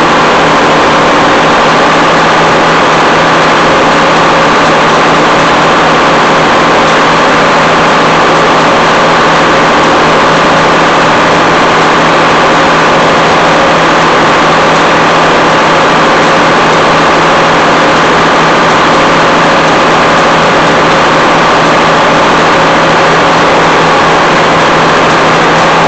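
Detroit Diesel 6-71 two-stroke diesel engine running steadily at an even speed, loud and unchanging.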